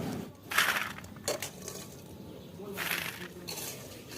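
A spoon scraping and stirring sugar-crusted goja in a metal pan: a few gritty, crunchy scrapes, once about half a second in, briefly just after a second, and longer around three seconds in.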